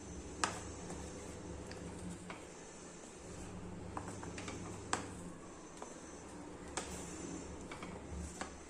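A few light clinks of a utensil against kitchen cookware, scattered about a second or more apart, over a steady low hum.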